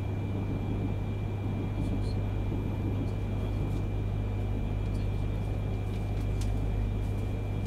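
Steady running noise of a Yamagata Shinkansen Tsubasa train heard from inside the passenger cabin: a constant low rumble with a faint high steady whine and a few light ticks.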